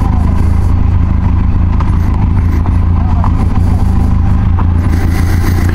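Benelli TRK 502X parallel-twin motorcycle engine idling steadily while stopped at a checkpoint.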